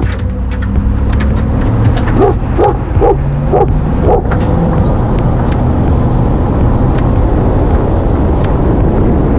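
Cane Corso barking: one bark at the start, then a quick run of five barks about two to four seconds in, over the steady rumble of a vehicle running.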